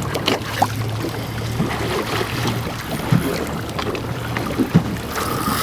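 Fishing boat's engine running steadily at idle, a low hum, under wind and water noise, with a few small clicks.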